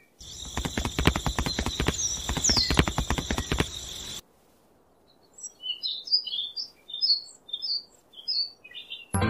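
A rapid, irregular clatter of knocks over a hiss for about four seconds. After a brief quiet, birds chirp in short, high, repeated calls.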